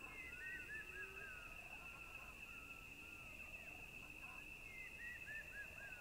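Faint outdoor nature ambience: a steady high insect trill throughout, with two quick runs of short bird chirps, one just after the start and one about five seconds in.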